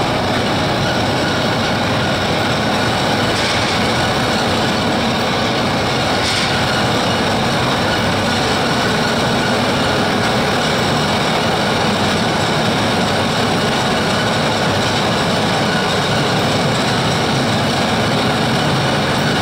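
Spudnik potato piler conveyor running, with potatoes tumbling off the end of its boom onto the storage pile in a steady mechanical clatter and rumble.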